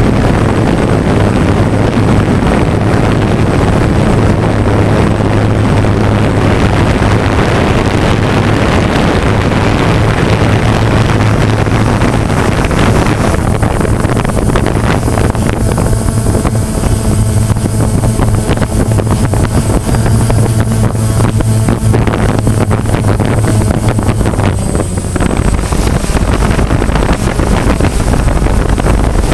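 DJI Phantom quadcopter's motors and propellers humming steadily as heard by its onboard camera, with wind buffeting the microphone. A deeper wind rumble grows near the end.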